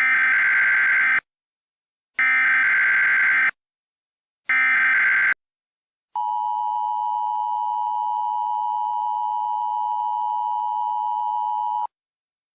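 Emergency Alert System broadcast tones: three short bursts of digital header data, each about a second long with silent gaps between, then the steady two-pitch EAS attention tone held for about six seconds before cutting off.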